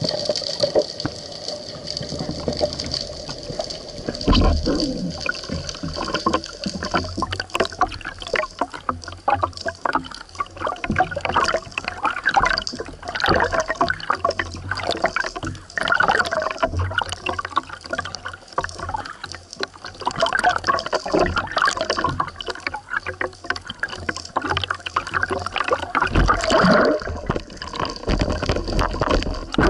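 Water sloshing, gurgling and splashing over a speargun-mounted camera housing as it moves between underwater and the surface, with bubbles, under a steady faint high hiss.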